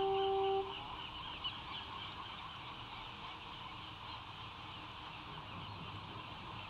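A steady horn blast cuts off about half a second in, leaving a constant chatter of many seabirds calling, gulls among them.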